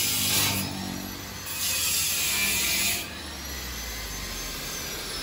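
Power tool, an angle grinder by the look of the work, grinding steel pipe in two harsh hissing bursts, then running free with a high whine that falls slowly as it spins down.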